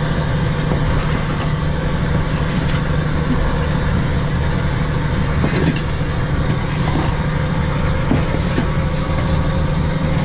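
Fishing trawler's engine running with a steady low drone, and a few brief scrapes and knocks from a shovel moving a pile of fish across the wet deck.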